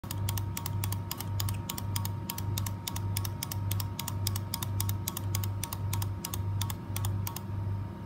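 Plastic toy bird giving a fast, even run of clicks, about four a second, that stops shortly before the end. Underneath, a low hum pulses about twice a second.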